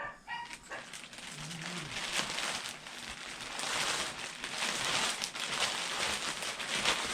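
Dogs barking, over a steady rustle and crinkle of plastic packaging being handled.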